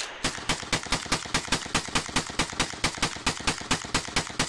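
Rapid gunfire in one unbroken string, about seven shots a second.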